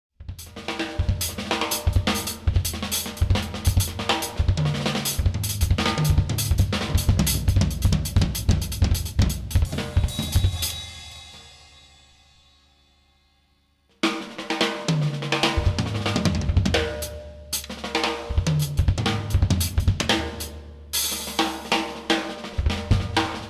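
Acoustic drum kit played freely: snare, bass drum, hi-hat and cymbals in fast strokes and fills, on drumheads more than four years old. About ten seconds in the playing stops and the cymbals ring away to near silence, then the kit comes back in abruptly with another loose groove, broken once near the end by a short pause and a cymbal crash.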